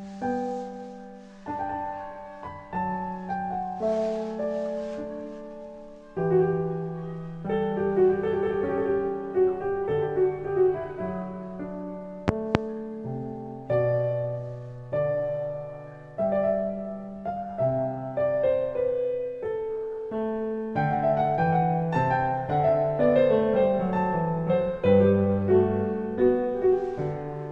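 Solo piano background music playing a gentle melody over slow chords, each note fading after it is struck. A quick double click about halfway through.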